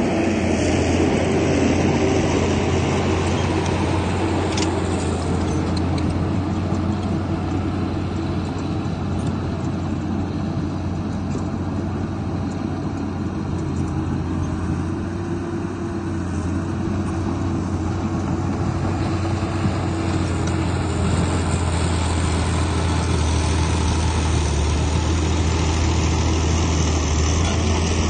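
Heavy earthmoving machine's diesel engine running steadily: a continuous low drone that eases slightly midway and builds again toward the end.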